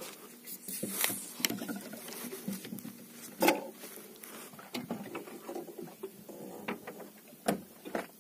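Irregular clicks, taps and knocks of handling, with a sharper knock about three and a half seconds in and another near the end.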